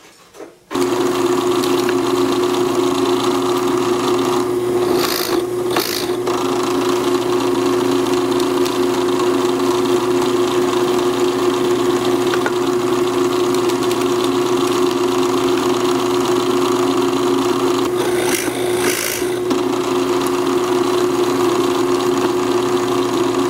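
Drill press switched on under a second in, its motor running with a steady hum. Twice, about five seconds in and again near eighteen seconds, a pair of brief louder rasping bursts as the bit cuts into a piece of wood held in the jig.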